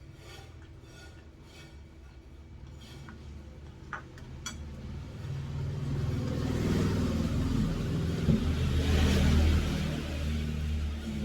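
A motor vehicle passing close by, its engine and rumble growing louder over several seconds and easing off slightly near the end. Two short clicks come just before it builds.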